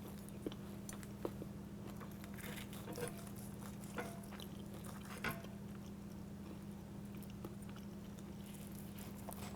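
A knife and fork cutting through a crispy panko-crusted fried chicken strip on a plate, giving a few faint scattered clicks and crunches over a steady low hum.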